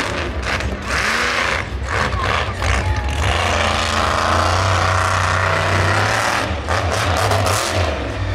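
Monster truck engine running loud, with a deep steady rumble and revs that rise and fall.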